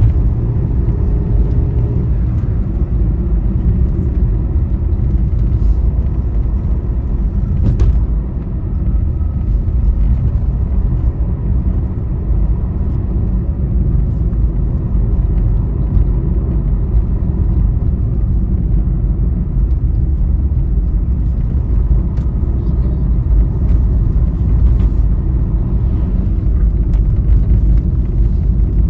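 Steady low road and engine rumble of a vehicle travelling on a highway.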